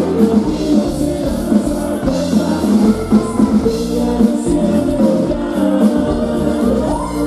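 A band playing dance music: a singer over drums and bass with a steady beat, loud and continuous.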